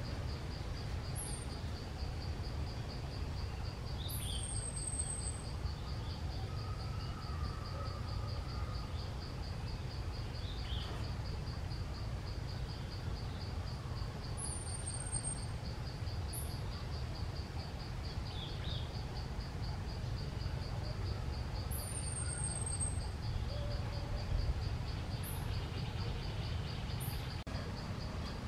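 An insect trilling steadily in a fast, even pulse, with short, very high, down-slurred bird chirps every few seconds over a steady low rumble.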